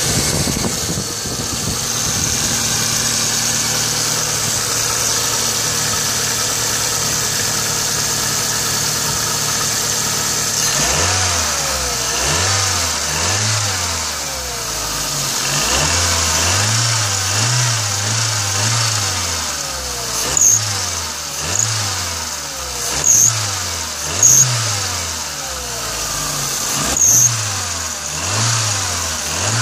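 Mazda 323F's Z5 1.5-litre four-cylinder engine idling steadily, then revved up and down repeatedly after about ten seconds. About five short, sharp high-pitched chirps sound in the second half. The owner hears a weird sound from this engine.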